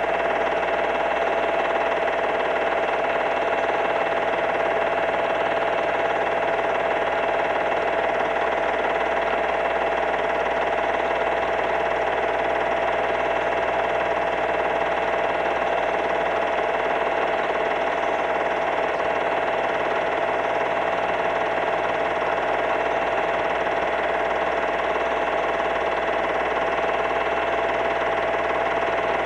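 A steady, unchanging hum with a whine in it, holding several fixed pitches at an even level throughout.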